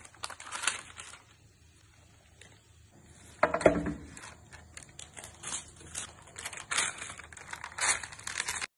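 Baking paper rustling and crinkling as sheets with rolled dough rounds are handled, in many short crackly bursts, with one louder knock about three and a half seconds in.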